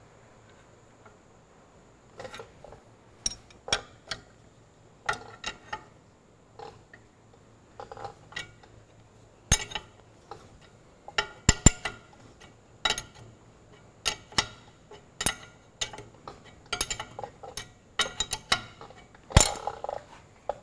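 Steel spanner clinking against a nut and threaded rod in short, irregular strokes, some in quick clusters, as the nut is turned a little at a time on a threaded-rod puller drawing a king pin bush into a tractor's front axle.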